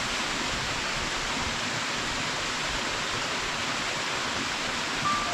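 Waterfall pouring: a steady, even rush of falling water. A brief high tone sounds near the end.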